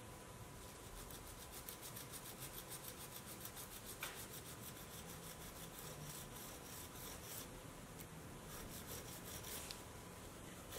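Hand nail file rasping back and forth over a UV-gel nail in faint, quick, even strokes, shaping the gel wall at the tip for an interlocking French.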